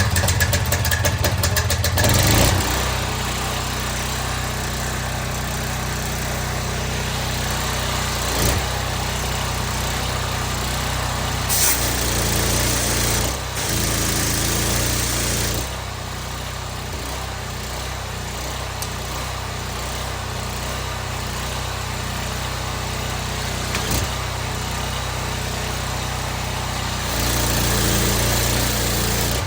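Loncin petrol engine of a belt-driven 21-litre pressure washer, just pull-started and running. It is loud and busy for about the first two seconds, then settles to a steady run, its level rising and dipping a few times.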